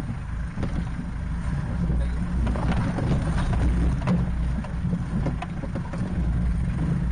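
Off-road vehicle engine running at low speed as the vehicle crawls over a rocky trail, heard from inside the cab. A steady low rumble carries frequent short knocks and rattles from the body and suspension jolting over the rocks.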